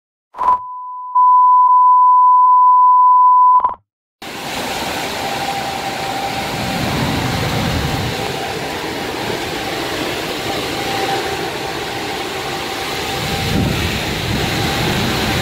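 A steady beep tone for about three seconds, then, after a brief silence, the loud, steady rushing noise of tornado-strength wind and heavy rain, with a faint steady high tone running through it.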